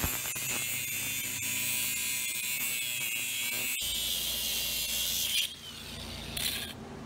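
DeWalt cordless angle grinder with its disc grinding against the fused end of a steel pipe crucible, a high-pitched grinding. It stops about five and a half seconds in, followed by one short burst of grinding about a second later.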